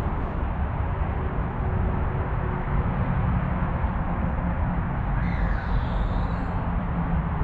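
Outdoor background noise: a steady low rumble and hiss with no engine or machine running. A brief bird call comes about five seconds in.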